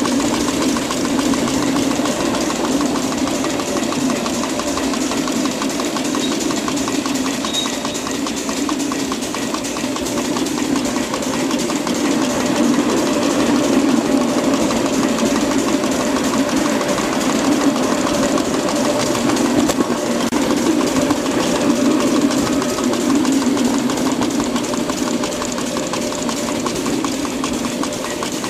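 Miniature 2-6-0 live steam locomotive running steadily along the track, a continuous rush of exhaust and steam with the clatter of its wheels on the rails.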